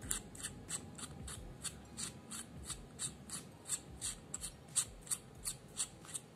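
Plastic battery housing of a Boya lavalier microphone being twisted by hand, giving an even run of sharp little clicks, about three a second.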